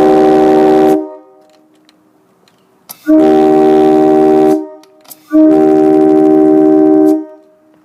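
Nathan K3HA three-bell train horn blown on compressed air at about 65 psi: a loud, steady held chord that stops about a second in, followed by two more blasts, the first about one and a half seconds long and the second about two seconds.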